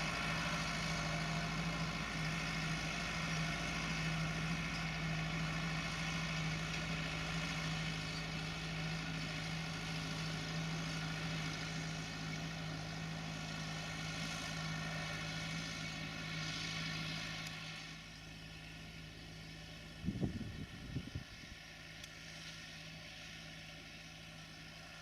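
Tractor diesel engine running steadily, then growing quieter about 18 seconds in. A few brief low thumps come about 20 seconds in.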